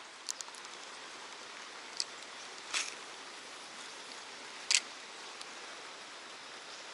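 Steady outdoor background hiss, with a few short sharp clicks or ticks scattered through it, the loudest about two-thirds of the way in.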